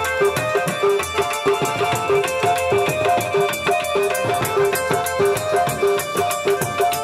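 Live Punjabi folk music: a drum beating a fast, steady rhythm under a short melodic phrase repeated over and over.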